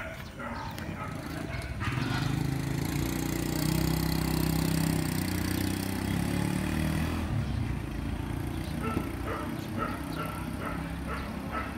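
A vehicle engine running close by, louder from about two seconds in and dropping away after about seven seconds, followed by a few short dog yips.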